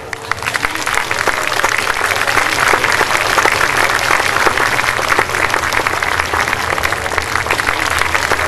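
Audience applauding, a dense, steady clatter of many hands that starts just as the folk dance music stops.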